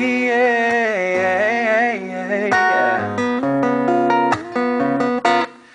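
Live solo acoustic guitar and male voice: a held sung note with vibrato ends the chorus over strummed chords. About halfway through the voice stops and the acoustic guitar plays on alone in a short strummed and picked interlude.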